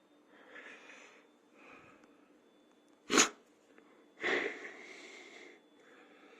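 A person breathing audibly, with one short sharp nasal burst like a sniff or sneeze about three seconds in and a longer noisy breath out a second later. A faint, thin, high steady tone runs underneath.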